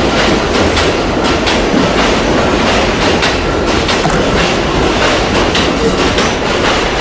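Train passing close by, running loud and steady, with its wheels clicking repeatedly over the rail joints.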